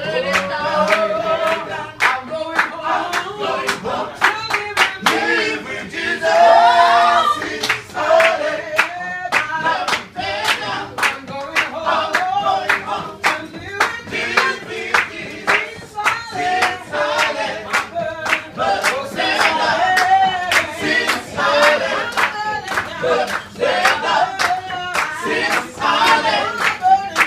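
A group of people singing together, with hand-clapping in a steady beat.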